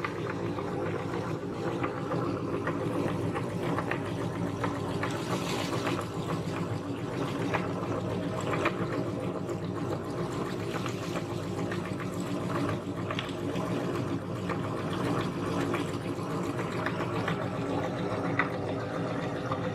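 Electric meat grinder running steadily with a constant motor hum, with scattered small clicks and crackles as it grinds a soft cookie.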